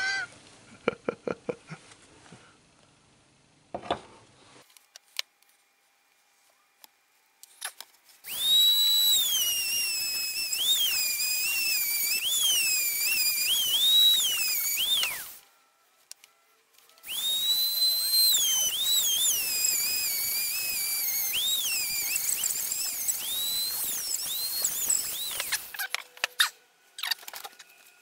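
A power tool fitted with a polishing head runs in two bursts of several seconds each, separated by a short stop. Its high whine repeatedly dips in pitch and recovers as the head is pressed onto the work, over a rushing sound. Light clicks come before it starts.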